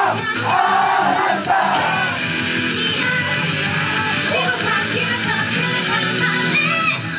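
Loud rock-style idol pop song with electric guitar and drums, a high sung and shouted voice over it in the first couple of seconds. Just before the end a sweep falls steeply in pitch.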